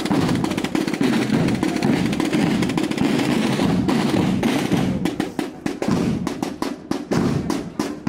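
Procession band drums playing music: snare drums in rapid rolls over bass drum. About halfway through, the rolls break into more separate, spaced beats.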